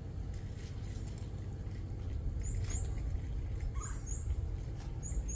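A bird chirping: short, high notes in pairs, each rising in pitch, repeated about once a second, over a steady low rumble.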